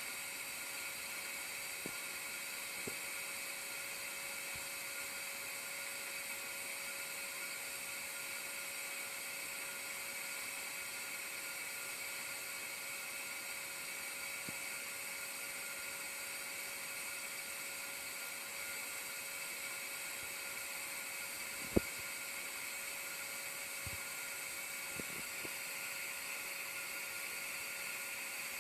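Steady, unbroken buzzing hum of bees at a hive, with a few faint clicks and one sharper click about 22 seconds in.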